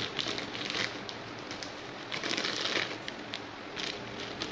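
Plastic wrapper crinkling and rustling in the hands as it is unwrapped, with irregular small crackles throughout.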